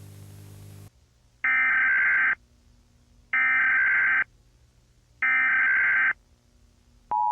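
Emergency Alert System broadcast tones: after a brief buzzing hum with hiss, three bursts of about a second each of the warbling digital SAME header data, then near the end the start of the steady two-tone EAS attention signal.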